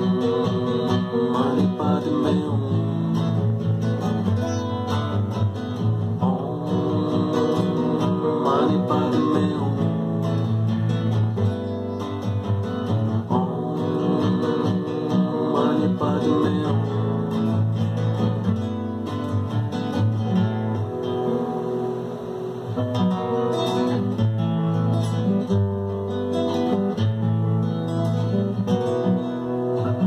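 Nylon-string classical guitar playing a steady run of chords.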